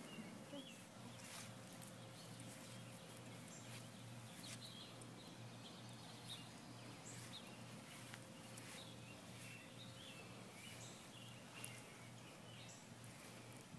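Near silence: faint outdoor ambience with a steady low hum and a few faint, short bird chirps scattered through.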